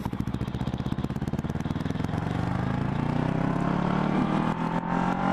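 Motorcycle engine pulling under load, its note rising steadily as the bike accelerates.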